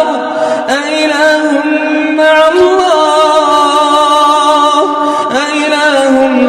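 A man's voice chanting a Quranic verse in a drawn-out melodic style, holding long notes that waver and glide in pitch. It takes short breaths about a second in and again near the end.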